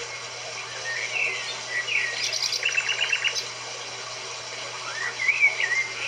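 Songbirds singing in short warbled phrases, with a rapid trill of repeated notes around the middle and a rising phrase near the end, over a steady hiss.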